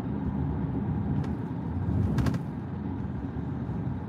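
Road noise inside a moving car's cabin: a steady low rumble, with a single faint click about a second in and a quick run of clicks just after two seconds.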